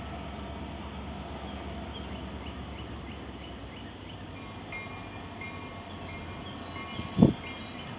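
CSX diesel-electric locomotive leading a freight train in at slow speed, its engine giving a low, steady throb. A single sharp, loud thump comes about seven seconds in.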